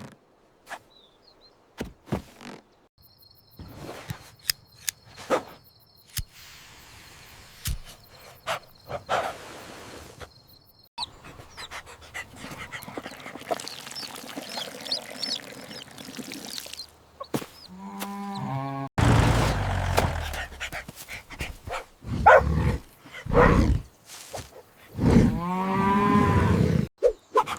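A run of cartoon sound effects: scattered knocks and thumps, then louder animal cries with bending pitch in the last third.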